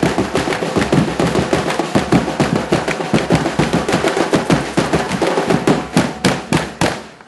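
Samba batucada drum band playing a fast, dense rhythm of many drum strokes a second. It closes with four hard unison hits, then stops suddenly.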